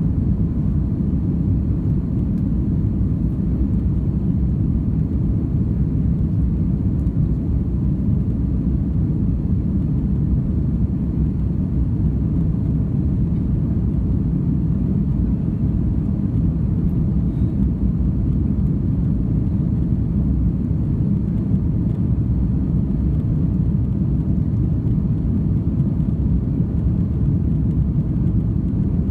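Airbus A330-300 cabin noise: a steady, low rumble of the engines and airflow, with no change in level.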